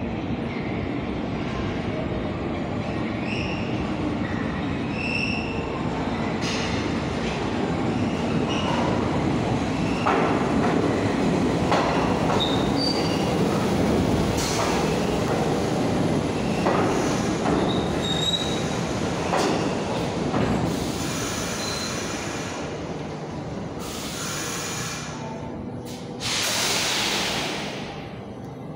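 New York City subway train running, its steel wheels squealing in many short high-pitched bursts over a steady rumble, with several hissing bursts near the end.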